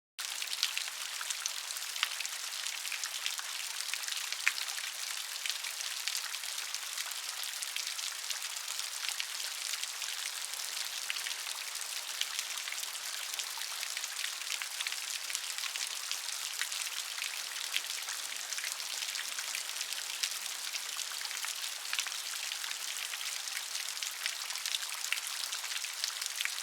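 Steady rain pattering: an even hiss dense with fine drop ticks, starting abruptly out of silence.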